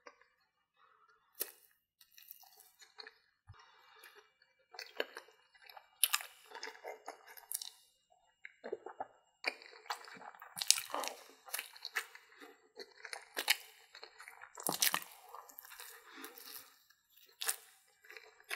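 A person chewing and biting into corn dogs, the fried cornmeal batter crunching in irregular bites and chews, louder and denser in the second half.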